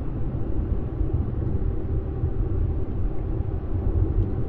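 Steady low drone of road and engine noise inside a moving car's cabin.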